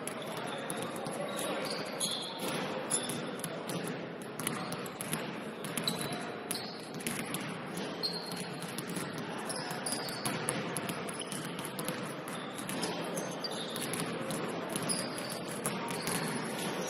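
Basketball game play: a ball bouncing on the court amid a steady crowd and player din, with many short high squeaks scattered throughout.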